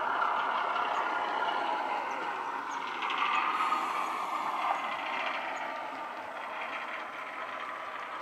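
A Class 08 diesel shunter's engine sound played by a model locomotive's DCC sound decoder through its small on-board speaker, running steadily as the OO-gauge model moves along the track. The sound is thin, with little bass.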